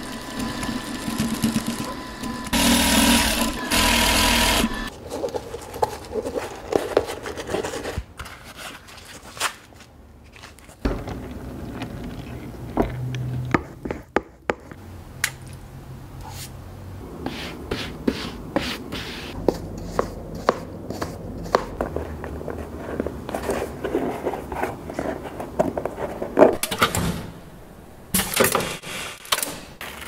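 Shoe-workshop sounds: an industrial sewing machine runs in the first few seconds, then scattered sharp clicks, taps and handling sounds from hand work on the shoe parts.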